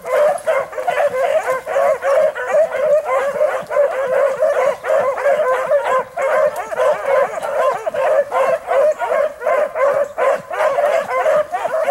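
A pack of rabbit hounds baying on a rabbit's trail, many voices overlapping in a continuous chorus of yelps and bawls: the dogs are on the track and running it.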